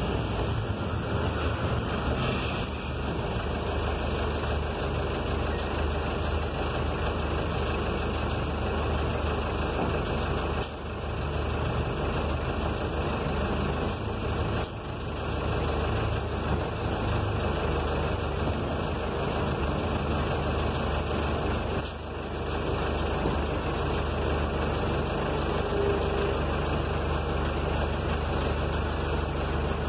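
City bus driving, heard from inside the cabin near the driver: a steady engine hum with road and cabin noise, which dips briefly three times.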